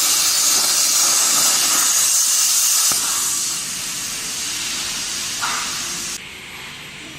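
Plasma cutting torch hissing loudly as the compressed-air arc cuts. The hiss eases off about three seconds in and drops away sharply near the end.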